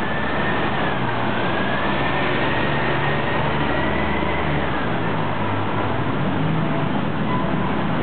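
City street traffic: a bus and cars running on the road alongside, a steady low engine drone with a faint high whine that wavers upward and fades out about halfway through.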